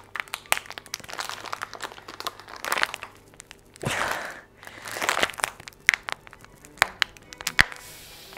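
Paper towel crinkling and rustling as hands are rubbed dry in it, in uneven bursts with a few sharp crackles in the second half.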